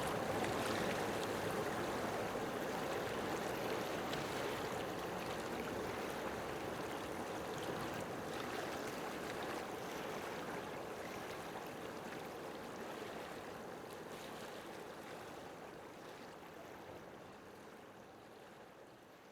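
Steady rushing background noise that slowly fades out toward the end.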